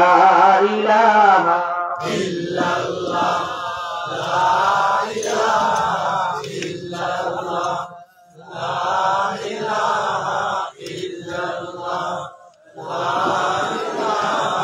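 A man's voice chanting into a microphone in repeated melodic phrases of about two seconds, each followed by a short break.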